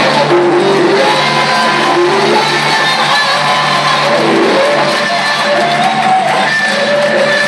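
Loud live musical-theatre band music with a steady bass note and melodic lines, heard across a large auditorium.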